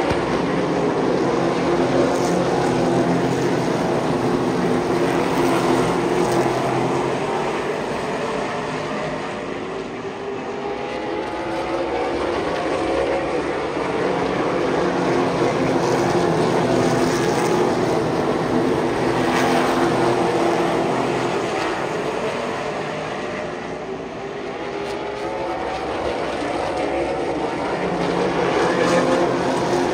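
Super late model race cars' V8 engines running laps around a short oval track. Several engines overlap, and the sound swells and fades in slow waves roughly every fourteen seconds as the pack comes around and goes away.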